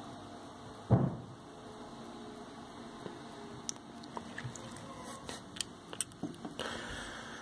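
A single loud thump about a second in, then scattered small clicks and taps, over a steady low indoor hum.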